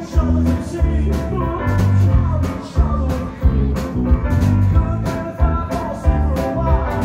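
Live rock band playing, with electric bass, drum kit and electric guitar, heard loud and close to the stage. The bass notes are prominent under a steady drum beat.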